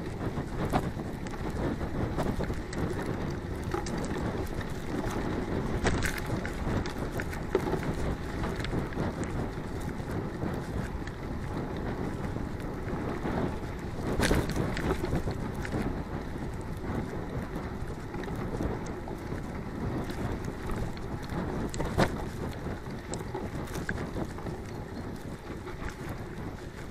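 Wind buffeting the camera microphone over the tyre noise of a mountain bike rolling fast along a dirt track. A few sharp knocks stand out, the loudest about twenty-two seconds in.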